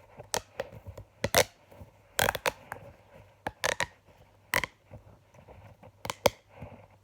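Plastic pop tube fidget toy being stretched and squashed, its ribbed sections snapping open and shut in an irregular run of sharp clicks and pops, some in quick pairs, with creaking between.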